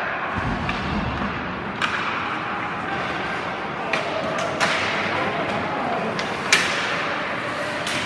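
Ice hockey play: a handful of sharp knocks from sticks, puck and boards, the loudest about six and a half seconds in, over steady rink noise and indistinct voices.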